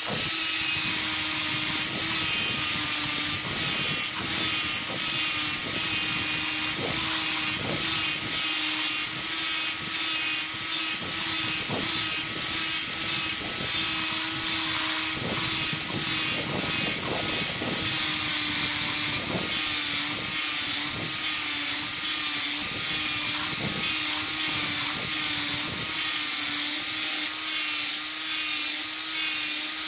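Electric angle grinder with a sanding disc grinding the steel of an axe head: a steady motor whine, with rasping that comes and goes as the disc is pressed onto the metal and lifted off.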